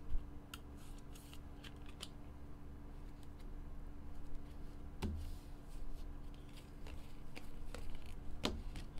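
Light clicks and rustles of trading cards and a rigid plastic toploader being handled and tapped, a few separate clicks with a sharper one near the end, over a steady low hum.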